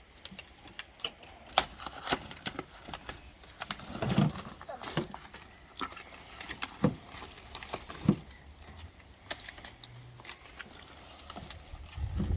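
Irregular clicks, light knocks and rattles of hard objects being handled, with a couple of heavier thuds about four and eight seconds in.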